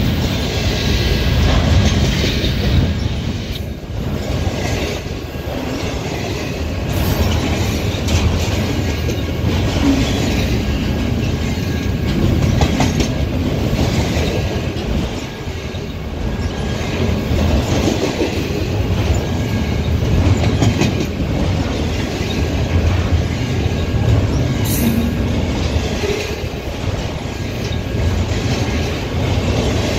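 Double-stack intermodal freight train passing close by: the steady rumble of its wheels on the rails, with repeated clicks and clacks as the well cars roll over the track.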